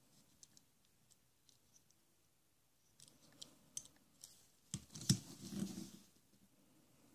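Faint clicks of a small die-cast toy car being turned over in the fingers, then a couple of sharper knocks and a short rustle about five seconds in as it is put down on the tabletop.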